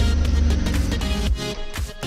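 Electronic background music with a steady beat; its heavy low bass drops out about halfway through, leaving lighter rhythmic hits.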